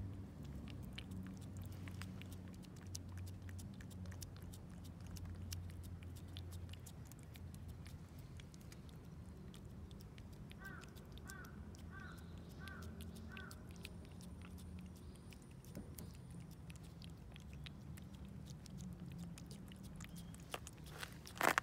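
A cat licking a paste treat from a squeeze tube: a fast, steady run of small wet licking clicks. A single louder knock comes near the end.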